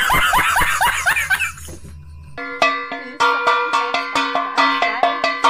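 A man laughing loudly in quick, rising and falling peals, breaking off under two seconds in. After a short lull, a metal basin is beaten with a wooden stick in a fast, even rhythm, each strike ringing on.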